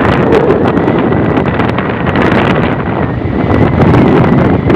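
Heavy wind noise on the microphone of a moving motorbike, with the bike's running and road noise beneath it.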